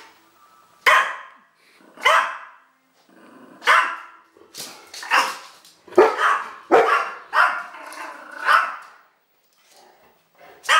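Yorkshire terrier barking at a cat: a string of sharp barks about one a second, coming closer together past the middle and dying away near the end.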